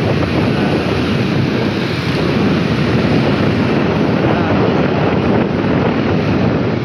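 Wind buffeting the microphone of a phone carried by a moving rider: a loud, steady, dense rush with most of its weight low down.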